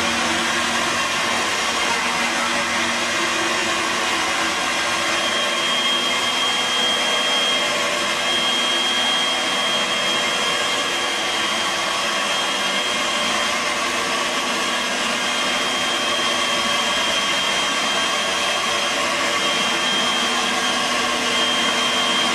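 Bosch VitaPower MMB 6174S 1200-watt blender running steadily at speed, blending a thick green protein smoothie in its ToGo bottle. A thin high whine comes in over the motor about five seconds in.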